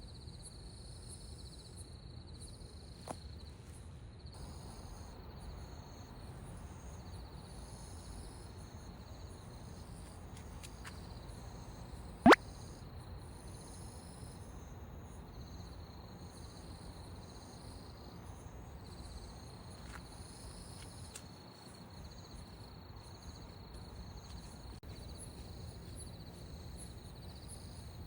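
Insects chirping steadily in high, pulsing trills over a low steady background rumble. A single sharp click comes about twelve seconds in, with a few fainter ticks scattered around it.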